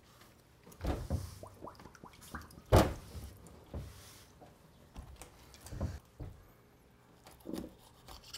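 Scattered knocks and thumps as a gutted red sea bream is handled over a steel sink and wooden cutting board, with one sharp knock just under three seconds in as the loudest.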